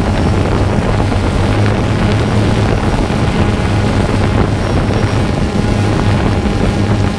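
Drone's propellers and motors running with a steady hum, mixed with wind buffeting the microphone.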